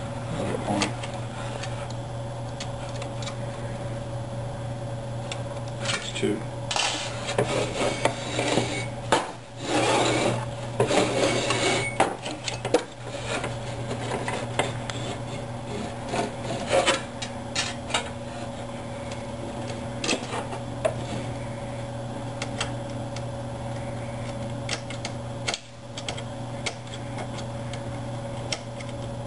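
Hands at work on a 3D printer's Z stage: bursts of rubbing and scraping with small clicks as the bearing screws are tightened with a hex key and the bed is slid on its guide rods, mostly in the middle. A steady low hum runs underneath.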